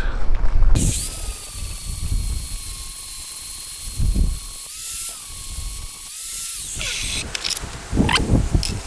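Angle grinder with an abrasive disc starting up about a second in and grinding the edges of a steel chisel's square shank, a steady high whine whose pitch shifts as the disc bears on and lifts off the metal. It is switched off and winds down near the end, followed by a few metallic knocks as the chisel is handled.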